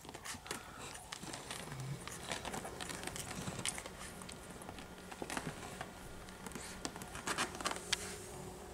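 A litter of two-week-old beagle puppies nursing: soft, scattered suckling clicks and smacks, with some rustling as they shift against the mother.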